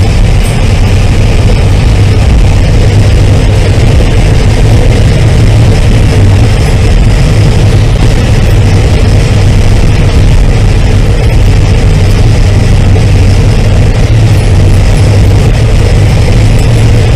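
Loud, steady wind howl and whistle from a 50-inch overhead LED light bar on a 2015 Jeep Wrangler JKU at road speed, heard inside the cabin over a low drone of tyres and engine. Wind catching the light bar's bare fins causes the howl.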